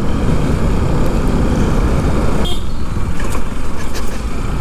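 Bajaj Pulsar NS200 motorcycle under way, its engine running beneath loud, steady wind rush on the rider's microphone.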